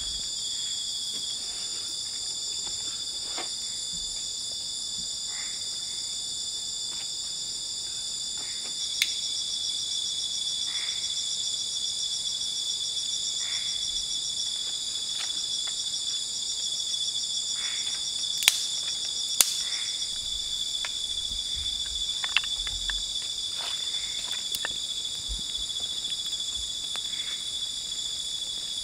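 Night-time forest insect chorus: a steady, high-pitched trilling in several layers, with one layer pulsing fast from about nine seconds in. A few sharp clicks stand out over it, the loudest twice close together around the middle.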